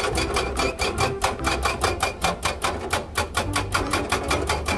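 Hydraulic rock breaker on a Kobelco excavator hammering a rock face in a rapid, even train of blows, about eight a second, over a steady low hum.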